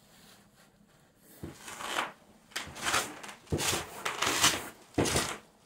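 Footsteps of heavy winter boots scuffing across a gritty shed floor, about two a second, starting about a second and a half in, with the swish of a nylon jacket.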